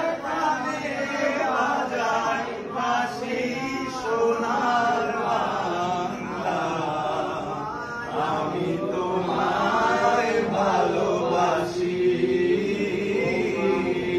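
A group of men singing together in a loose chanting unison, several voices overlapping, with no break.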